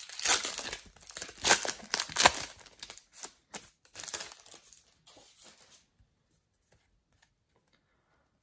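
Topps Mega Match Attax card packet's wrapper being torn open and crinkled. The tearing and crinkling is loudest in the first two and a half seconds, then lighter rustling goes on until it stops about six seconds in.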